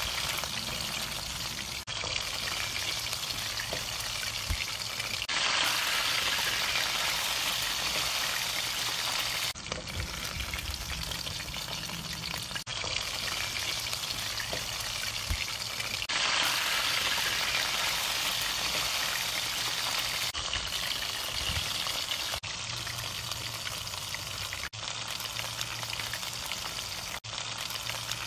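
Hot oil sizzling and bubbling steadily around red-marinated chicken pieces as they deep-fry, in a run of short spliced clips with a brief break every few seconds.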